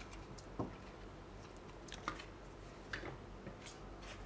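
Faint handling of paper cards and a cardboard box: a few light taps and rustles, about four in all, spaced out over a quiet room.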